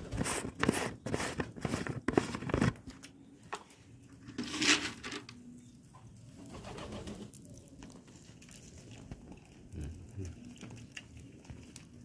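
Fancy pigeons bathing in a shallow tray of water: a quick run of splashes in the first few seconds and a louder burst about four and a half seconds in, with pigeons cooing low in between.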